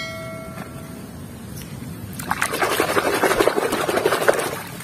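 A short bell-like chime rings out at the start. From about two seconds in, a hand splashes and sloshes in a basin of foamy, muddy wash water; this is the loudest part.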